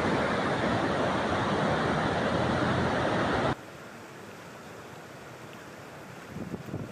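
Loud steady rushing of water, which cuts off abruptly about three and a half seconds in to a much quieter rushing, with a few low irregular swells near the end.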